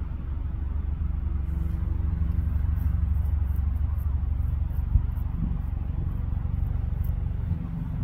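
Steady low engine rumble, like a motor vehicle running close by, with one short knock about five seconds in.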